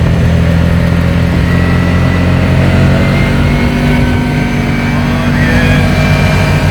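Dune buggy engine running steadily as it drives off-road, a loud, even low drone.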